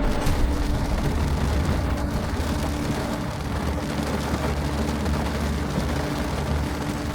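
Heavy rain falling on a car during a thunderstorm, heard from inside the cabin over a steady low rumble.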